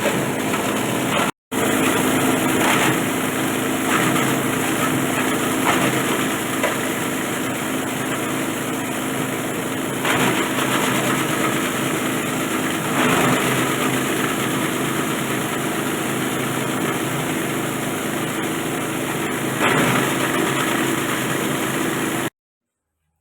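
Plastic bottle crusher machine running steadily, with brief louder surges every few seconds. It drops out for a moment early on and cuts off suddenly near the end.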